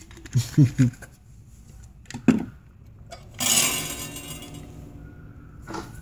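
A sharp click, then a sudden burst of electrical hiss with a buzzing hum, which fades away over about two seconds; it seems to come from powered audio gear that was left plugged in. A few short low murmurs come near the start.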